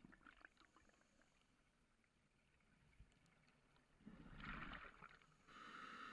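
Scuba diver breathing through a regulator underwater, muffled through the camera housing. Faint crackling bubbles at the start, a rush of exhaled bubbles about four seconds in, then a steady regulator hiss near the end.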